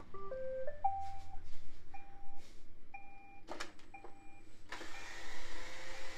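iRobot Roomba robot vacuum starting a cleaning run. Right after its CLEAN button is pressed it plays a short rising-and-falling electronic start-up tune, then gives a short two-note beep about once a second, four times, with a couple of sharp clicks. About three-quarters of the way in, its vacuum motor and brushes start with a steady whirring hiss as it drives off its dock.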